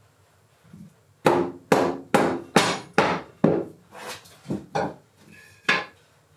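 Knocking on wood: about ten sharp blows at roughly two a second, each with a short woody ring, the last coming after a brief pause near the end.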